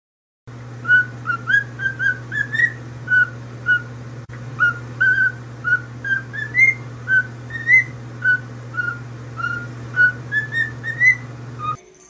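Cockatiel whistling a tune: a long run of short, clear notes, many rising at the end, starting about half a second in, over a steady low hum.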